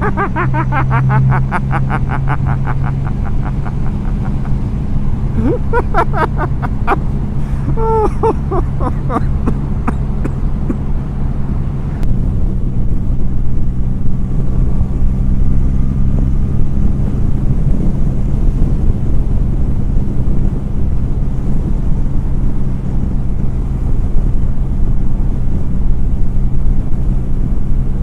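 Triumph Rocket III Touring's big triple engine running steadily while the motorcycle is ridden, with its exhaust pulses plain early on. About twelve seconds in the sound gets louder and a wind rush over the microphone takes over.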